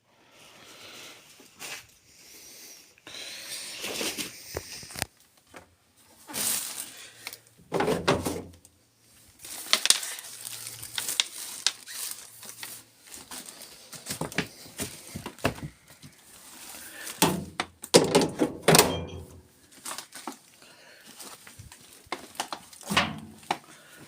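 Irregular thunks, knocks and clicks of a Proline TD 6 VE Glass tumble dryer being handled, its door opened and shut, with no drum running. The loudest knocks come about eight seconds in and again around eighteen to nineteen seconds.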